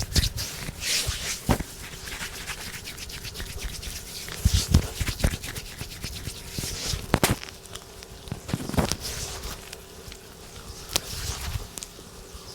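Hands rubbing and kneading bare skin in a rough deep-tissue massage: a steady rubbing hiss, with a few sharp clicks and a couple of low thumps.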